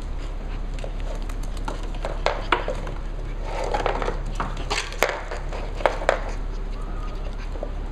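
Cavalier King Charles Spaniel puppies playing on a hardwood floor: a scattered clatter of claws and play toys, including a rolling tube and a small ball, with a few sharper knocks.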